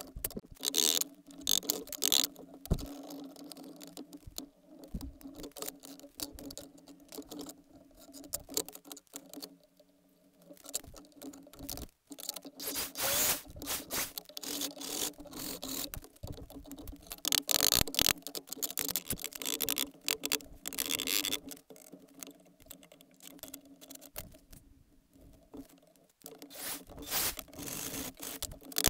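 Hand scraping on the wooden chest's surface: clusters of irregular scraping strokes with short pauses, over a faint steady hum.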